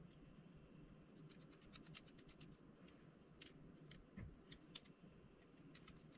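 Near silence, with faint scattered ticks and scratches from a small Phillips precision screwdriver backing tiny screws out of a GoPro Hero 7 camera body. A soft low thump comes about four seconds in.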